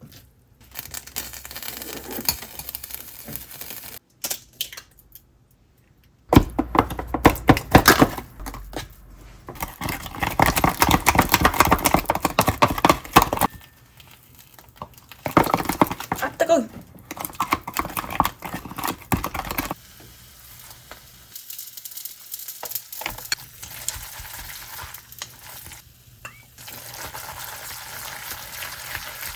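Home cooking sounds: utensils stirring, scraping and clinking in a pan, with food sizzling. The sound changes abruptly several times, as short cooking clips follow one another.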